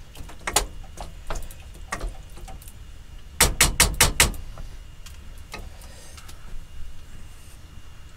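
Wooden spoon stirring a pan of curry and clacking against the saucepan, with scattered knocks and a quick run of about five sharp taps a little over three seconds in.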